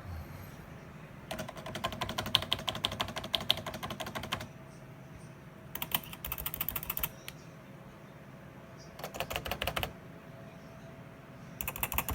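Keys on a computer keyboard being typed fast, in four bursts of rapid clicks separated by short pauses. The first burst is the longest.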